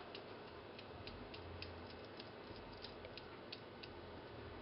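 Faint light ticks, about three a second, of a silicone spatula knocking against a glass mixing bowl while flour is stirred into batter; the ticks stop about four seconds in.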